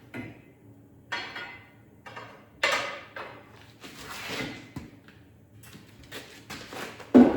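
Metal tools clanking and scraping as they are handled, a few separate clatters with a sharp metallic knock near the end.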